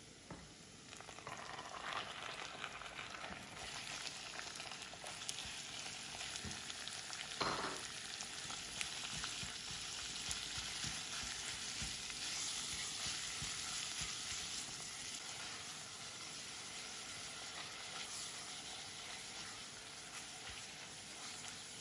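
Minced beef frying with diced onion in oil in a non-stick pot: a steady sizzle that builds up in the first second or two as the meat goes in, while a silicone spatula stirs it, with small scrapes and one knock about seven seconds in.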